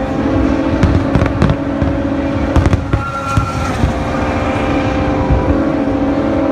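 Fireworks display: an irregular run of sharp bangs and crackling pops over a continuous rumble and a steady low hum.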